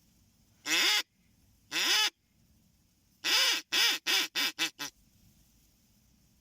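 Duck quacking: two long quacks, then a quick run of six, each shorter than the last, in the falling cadence of a mallard hen's call.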